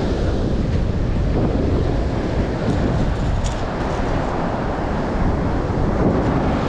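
Wind noise on the microphone over the steady wash of ocean surf.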